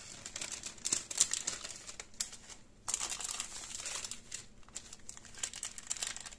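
Brown baking paper crinkling as gloved hands fold it over and press it around a log of meat mixture. The crackling is irregular, with a short lull about two and a half seconds in.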